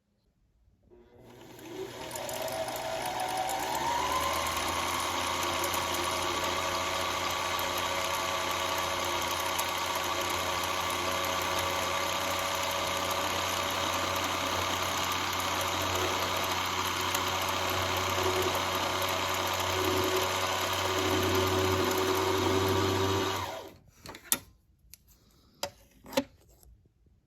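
Sewing machine motor winding the bobbin: it spins up with a rising whine over the first few seconds, runs steadily for about twenty seconds, then stops. A few light clicks follow near the end.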